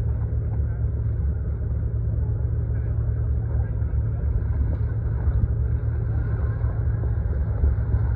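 Segway Villain side-by-side UTV engine running at low, steady revs as the vehicle crawls uphill over muddy ruts: a steady low drone.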